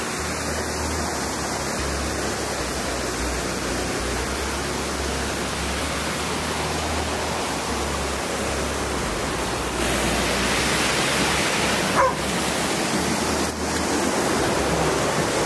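Waterfall running high after rain: a steady rushing of water that grows louder about ten seconds in, with one brief sharp sound about two seconds after that.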